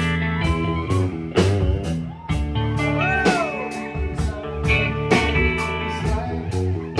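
Live rock band playing: electric guitars over drums with regular cymbal strikes, one guitar bending a note up and back down about three seconds in.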